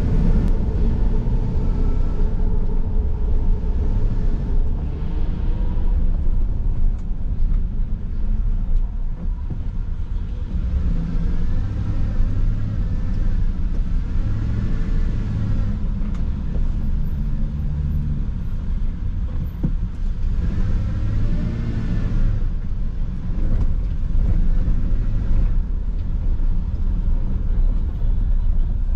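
Car driving on city streets, heard from inside the cabin: a steady low rumble of engine and tyres on the road.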